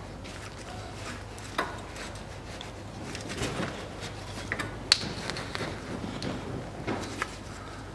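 Steel hand tools clinking and knocking as a tie rod end puller is fitted onto the tie rod end and worked with a wrench: a few scattered sharp clicks, the sharpest about five seconds in, over a steady low hum.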